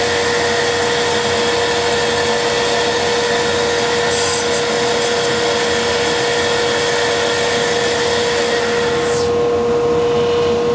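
Lathe running with a steady whine and hiss. About nine seconds in, the high hiss dies away as it winds down, while a steady hum carries on.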